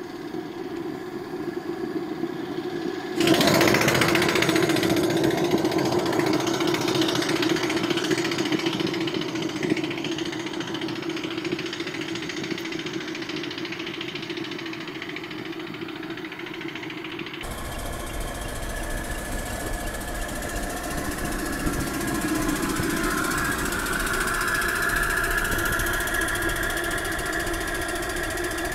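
A homemade steam motorcycle's small steam engine running steadily under way: a rapid mechanical chuffing with hissing steam. It gets suddenly louder about three seconds in. Past the middle the sound changes abruptly to the run as heard from a car alongside, with a low wind rumble under it.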